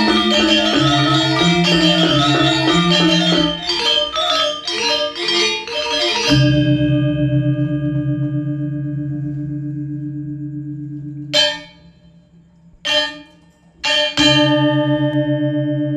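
Balinese gong kebyar gamelan: bronze metallophones play a fast, dense passage, then about six seconds in the whole ensemble strikes one loud unison chord that rings and slowly fades with a pulsing shimmer. Near the end come three sudden unison strikes with silences between them. The first two are stopped short and the last is left ringing.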